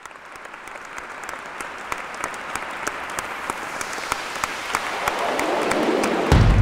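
Audience applause: many hands clapping, swelling steadily in loudness. Near the end a strong deep low sound comes in suddenly under the clapping.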